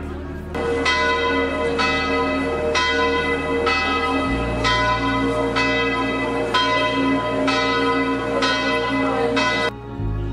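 Church bell tolling, roughly once a second, each strike ringing on into the next. It begins just after the start and stops shortly before the end.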